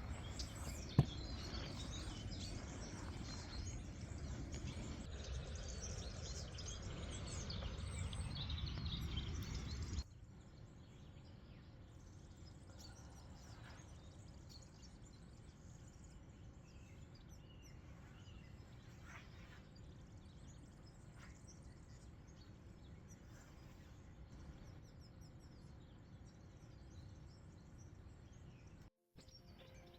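Outdoor ambience with small birds chirping now and then. For the first third a louder steady rushing noise sits underneath, then it cuts off abruptly, leaving a quieter background with the birds.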